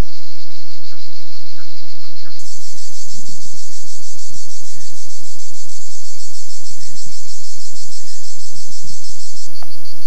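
A loud, steady, pulsing shrill of insects that gets brighter about two and a half seconds in. Over it, a quick run of low clucking notes from chukar partridges in the first two seconds, then a few faint high chirps and low rumbles that come and go.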